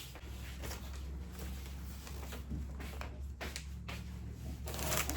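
Quiet indoor room tone: a low steady hum with a few faint, scattered clicks and rustles like small items being handled.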